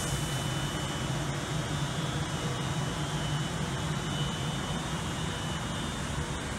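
Avanti West Coast passenger train rolling slowly along the platform: a steady low hum with a faint high whine over it.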